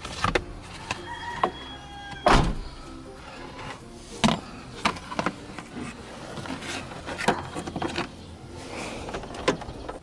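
Irregular clicks and knocks of a car seat belt being handled: the metal latch plate and webbing tapping against the plastic pillar trim, with the loudest knock about two seconds in.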